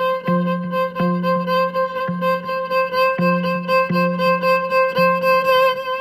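Instrumental music: one long held high note over a low plucked accompaniment with a steady beat of about two notes a second.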